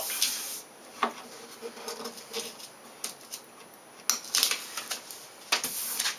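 Hands rubbing and pressing contact paper flat onto a paper part on a plywood bench, mashing it down to make good contact. Scattered paper rustles and light clicks, with a louder rustle near the end as the covered piece slides across the table.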